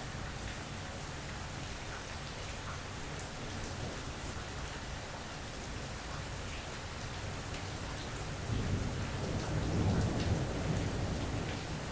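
Steady rain falling, with scattered drop ticks. About two-thirds of the way through, a low rumble of thunder rolls in, louder for a couple of seconds, and dies away near the end.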